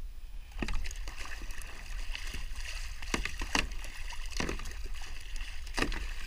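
Water splashing and sloshing against a kayak, with irregular sharp splashes or knocks every second or so over a steady rush of water.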